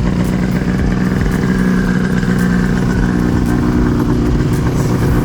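Liquid-cooled Ski-Doo snowmobile engine running at a steady, even pitch.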